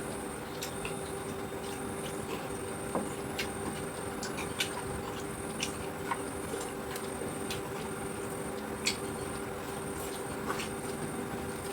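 Eating sounds: scattered light clicks and taps at irregular intervals over a steady background hum.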